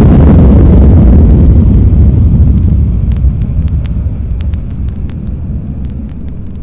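Boeing 747 jet engines at takeoff power: a deep rumble with a hissing roar on top, fading steadily as the high end dies away. As it fades, the surface clicks of the vinyl record come through.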